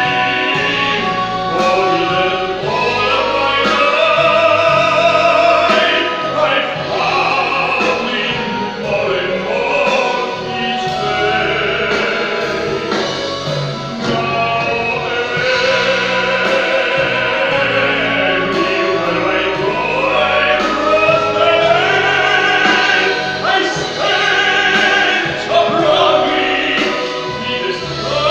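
Operatic tenor singing with vibrato, accompanied by a symphony orchestra, heard live from the audience seats.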